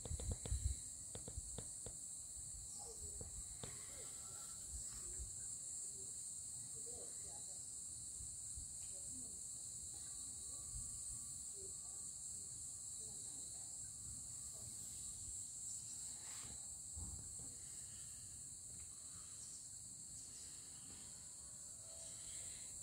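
Steady high-pitched chorus of chirring insects, with a few low knocks in the first couple of seconds.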